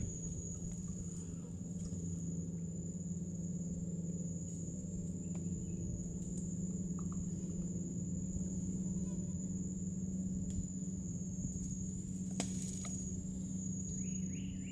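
Insects trilling in one continuous, steady high-pitched note, over a steady low hum.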